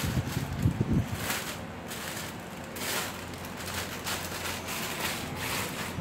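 Plastic courier mailer bag crinkling and rustling in spells as it is handled, with a few low knocks in the first second.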